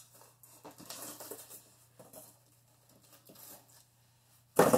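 Cardboard box and packaging being handled as a switch power supply is taken out: scattered small scuffs and rustles, then a sudden loud rustle near the end.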